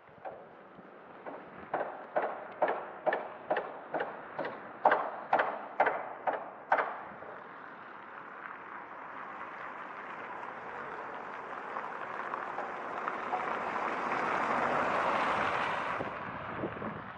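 Footsteps on pavement, about two to three sharp steps a second, stopping about seven seconds in. Then a car passes, its tyre and engine noise slowly swelling and fading out near the end.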